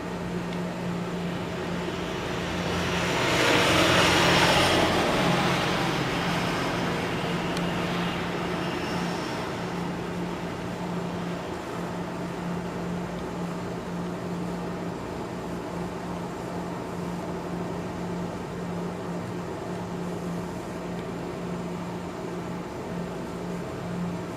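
A car passing on a snowy road: the tyre noise swells to a peak about four seconds in and then fades away slowly. A steady low hum runs underneath.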